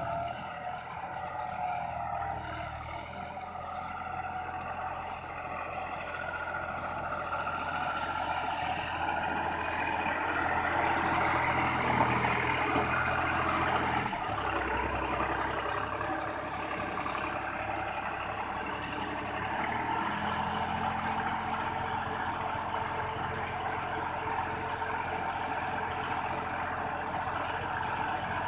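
Tractor engine and PTO-driven round baler running steadily under load, with mechanical whir and clatter. The noise swells to its loudest about halfway through, then settles.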